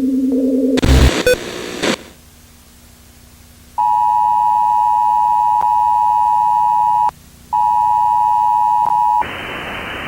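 Simulated emergency broadcast: a burst of loud static about a second in, then the Emergency Alert System's steady two-tone attention signal starting about four seconds in. The tone drops out briefly near seven seconds, resumes, and gives way to a steady hiss near the end.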